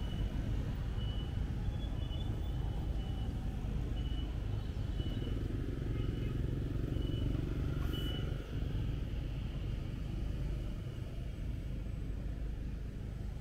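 Motorbike and car traffic heard from a moving scooter: a steady low rumble of engines and road noise. Over it, a short high beep repeats every half second or so and stops about eight seconds in.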